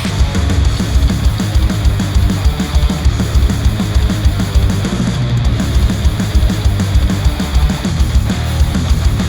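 Heavy, guitar-driven rock music with distorted electric guitar and rapid, dense kick-drum hits, played through Sennheiser headphones and picked up by microphones.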